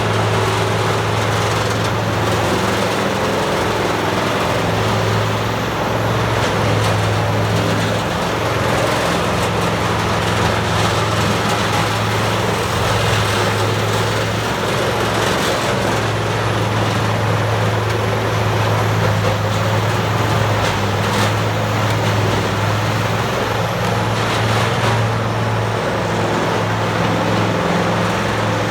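Peterson 2710D tracked horizontal wood grinder running: a steady low diesel-engine drone under a broad noisy rush, with a few short knocks.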